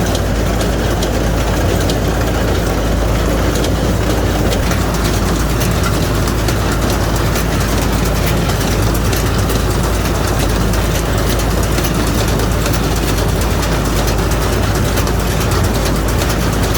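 Tractor engine working a straw baler, running steadily with a fast mechanical clatter over its low hum.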